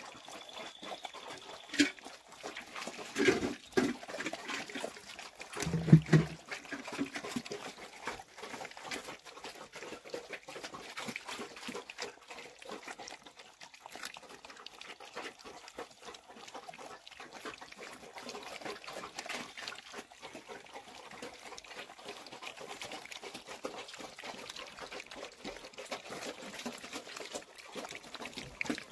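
Black piglets eating wet feed from a trough: continuous slurping and chomping, with a few louder pig grunts around three and six seconds in.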